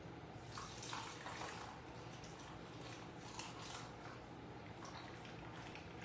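Pickling brine being poured from a spouted bowl into a jar of cucumbers: a faint trickle and splash of liquid, a little stronger about a second in.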